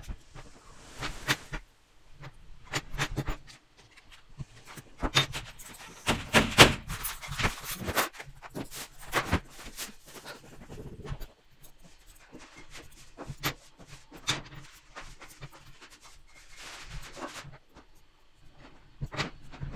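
Small metal construction-kit parts (strips, screws and nuts) clinking and rattling as they are handled and screwed together by hand, in irregular clicks. The clinks are densest and loudest around the middle and thin out for a few seconds later on.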